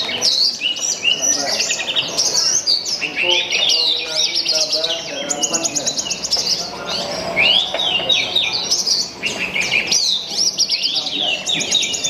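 Horsfield's bush lark (branjangan) singing a long, varied song of fast trills, chirps and rising and falling whistled notes with hardly a pause.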